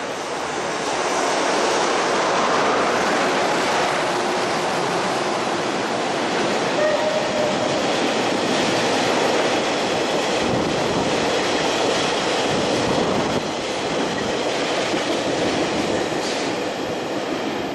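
JR Freight EH200 electric locomotive passing close by, followed by a long train of oil tank wagons rolling past with steady, loud wheel-on-rail noise. The noise builds about a second in and eases near the end as the last wagons go by.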